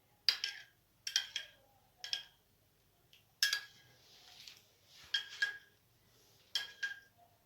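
Metal utensil clinking against a dish, a sharp ringing clink or quick double clink about once a second, with a soft hiss between the clinks in the middle.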